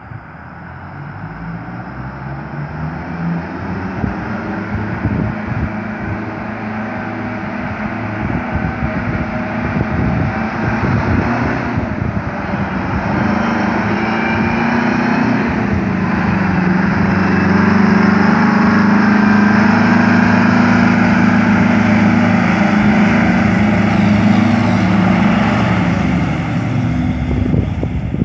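A coach bus's diesel engine running as the bus drives up toward the listener and draws close, growing steadily louder. The engine note rises in the first few seconds, dips briefly about halfway through, and is loudest and steady over the last ten seconds.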